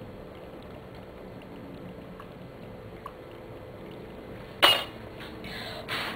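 Steady faint liquid bubbling and hiss from an HHO gas generator and torch. About four and a half seconds in there is one sudden loud knock, followed by a few shorter, weaker bangs and rustles.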